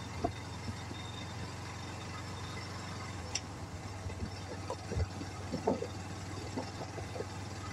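Bajaj Pulsar NS125's single-cylinder engine running with a steady low hum.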